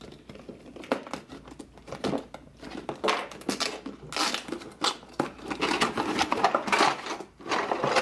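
Cardboard box being opened by hand: the tape seal is torn and the cardboard flaps and inner carton rustle and scrape, with scattered clicks. The sound gets busier and louder from about halfway.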